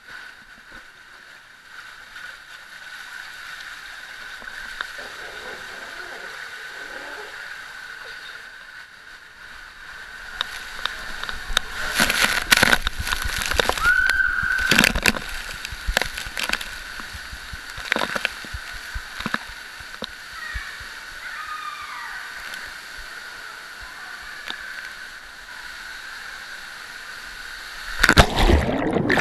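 Water rushing through an enclosed tube water slide as a rider slides down fast, with sharp knocks of the body against the tube walls through the middle of the ride. Near the end comes a loud splash as the rider drops into the landing pool.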